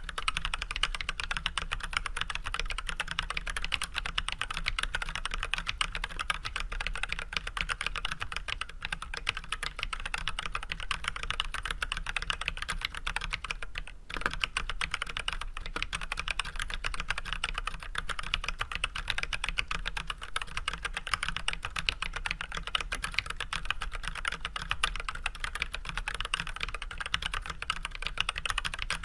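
Steady, fast typing on an Archon AK87 hot-swap mechanical keyboard with Everglide Red 67g linear switches, fitted with switch films and unlubricated, under white PBT keycaps. A short break in the keystrokes about halfway through.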